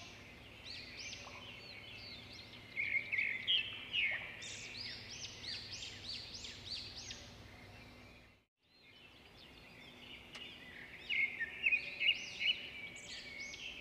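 Many small birds chirping and twittering in quick, overlapping calls, thickest about three seconds in and again near the end. The sound drops out completely for about half a second partway through.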